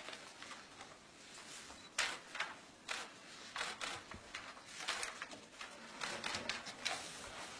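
Papers rustling as sheets are handled and turned, with scattered sharp clicks and short rustles coming irregularly over a faint hiss.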